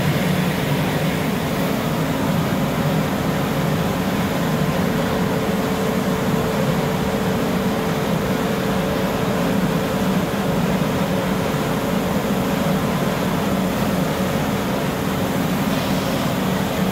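Rice mill machinery running with a steady, even drone and a constant hum.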